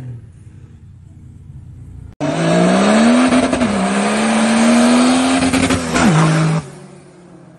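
An engine-swapped Nissan Patrol accelerating hard toward and past, following a fainter engine sound that cuts off abruptly about two seconds in. The loud engine's revs dip once at a gear change, climb steadily, then fall away sharply as it passes. It cuts off abruptly again to a quieter engine sound near the end.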